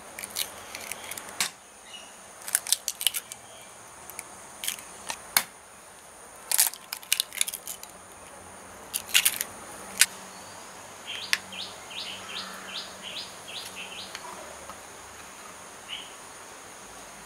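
Raw eggs cracked open one after another over an earthenware bowl: sharp taps and cracks of eggshell breaking. Later comes a short run of quick, high bird chirps, about two a second.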